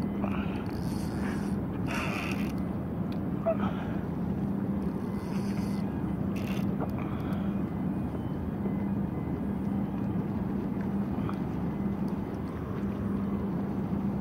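Steady low rumble with a constant hum, broken several times by short scratchy bursts as a spinning reel is wound in against a hooked fish.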